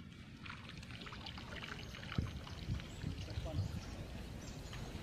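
Faint open-air sound of workers transplanting rice in a flooded paddy: a low wind-like rumble with scattered light splashes and clicks, and faint distant voices.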